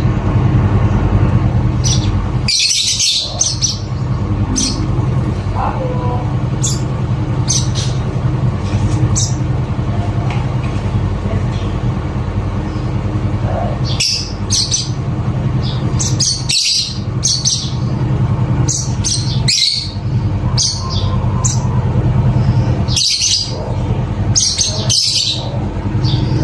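African lovebird squawking and chirping in short, shrill calls at irregular intervals, over a steady low hum.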